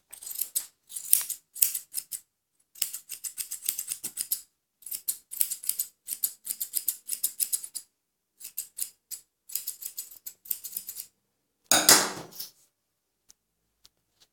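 Straight grooming scissors snipping a schnauzer's coat along the skirt and leg, in quick runs of crisp snips with short pauses between them. A brief, louder burst of noise breaks in about twelve seconds in.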